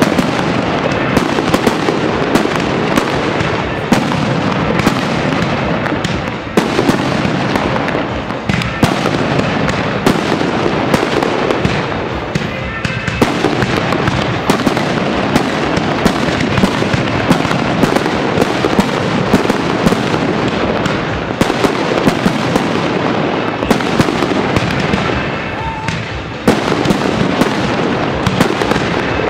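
Aerial firework shells bursting in a dense, continuous barrage, bang after bang without a pause.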